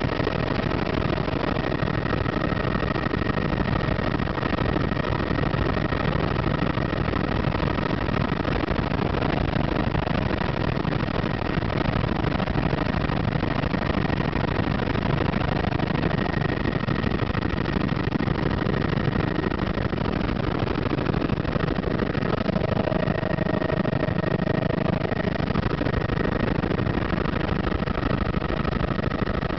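Helicopter's engine and rotor running steadily in flight, heard from inside the cabin: a constant rumble with a steady whine over it.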